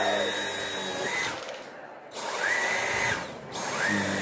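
Dyson V8 Animal cordless stick vacuum running with its mini motorized brush head on a fabric cushion. Its whine rises and falls in pitch several times, and it dulls briefly twice as the head works the cushion.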